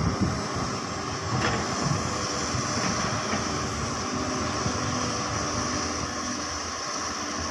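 Hyundai crawler excavator's diesel engine running under load as it digs into a soil pile, a steady low rumble with a steady high hiss above it.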